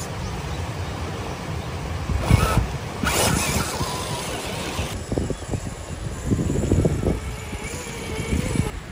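Axial SCX10 III RC rock crawler climbing a rock ledge: its tyres scrape and knock on the rock in short bursts, sharpest about two and three seconds in, with the faint whine of its brushed motor near the end, over a steady low rumble of wind on the microphone.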